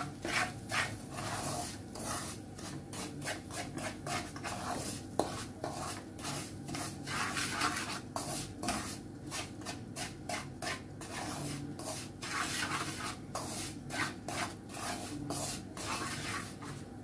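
Wooden spatula scraping and stirring dry semolina around a nonstick frying pan as it roasts: quick, repeated rasping strokes, a few each second.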